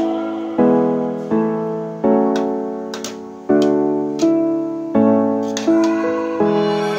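Background music: a slow piano piece, chords struck one after another and each left to fade.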